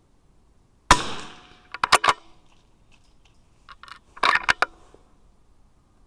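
A .22 rimfire rifle shot, a sharp crack with a short echo tail about a second in, followed by quick sharp metallic clicks and a second cluster of clacks a little past halfway as the rifle's bolt is worked to chamber the next round.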